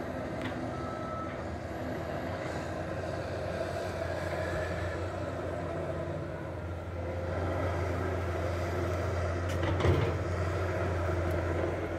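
Steady low drone of an excavator's diesel engine running, with a brief knock about ten seconds in.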